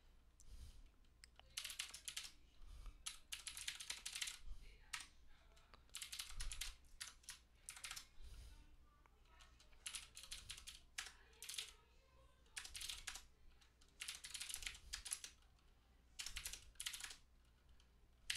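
Faint computer keyboard typing in quick bursts of keystrokes, broken by short pauses.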